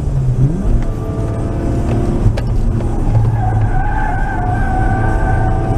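Nissan R33 Skyline's RB20E 2.0 litre SOHC straight-six running hard on track, heard from inside the cabin, its pitch shifting about half a second in. From about three and a half seconds in the tyres squeal steadily as the car slides through a corner.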